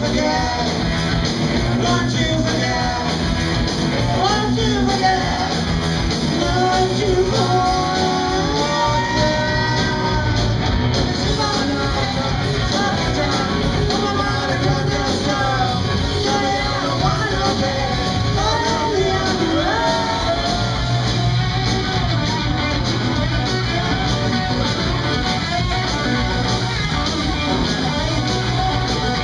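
Live rock band playing, heard from the audience: singing over electric guitar, bass guitar and drums.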